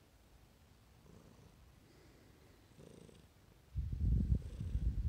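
Domestic cat purring in a low pulsing rumble, faint at first and then much louder and closer from a little before four seconds in.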